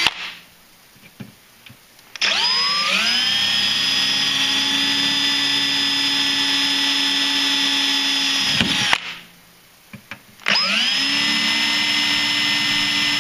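Power drill with a small pilot bit boring holes into aluminum running-board tubing: a steady high whine that spins up after about two seconds, runs for about six seconds and stops, then spins up again about a second and a half later for the next hole.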